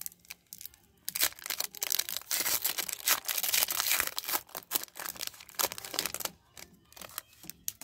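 Foil trading-card pack wrapper being torn open and crinkled in the hands. There is dense crackling from about a second in to about six seconds, then a few scattered crinkles.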